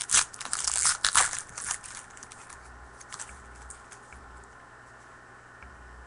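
Crinkling and crackling of a trading-card pack's wrapper being handled and torn open, loud for the first two seconds, then a few faint ticks before it goes quiet.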